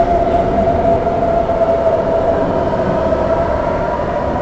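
DB Class 423 S-Bahn electric train at an underground platform: a steady electric whine from its traction drive, sinking slightly in pitch, over a low rumble.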